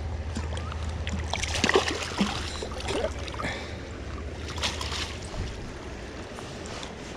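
Hooked brown trout splashing and thrashing at the water's surface as it is brought to the net, in short bursts of splashes over running creek water.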